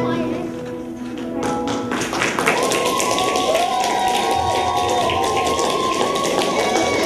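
A last sung chord from a group of singers fades away, then an audience breaks into applause, with a voice cheering over the clapping.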